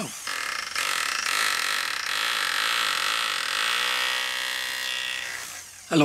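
Electric drill boring a hole into a rounded stone held in a metal vise: a steady motor whine over the grinding of the bit in the rock. It starts about a second in and dies away just before the end.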